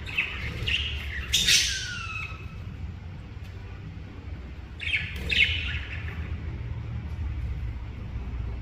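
Lovebirds chirping: a cluster of sharp chirps in the first two seconds, the loudest sliding down in pitch at its end, then another short cluster about five seconds in, over a steady low hum.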